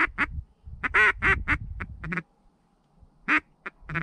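Loud mallard hen quacks: a string of drawn-out quacks in the first two seconds, a short lull, then a few short quacks near the end. A low rumble sits under the first half.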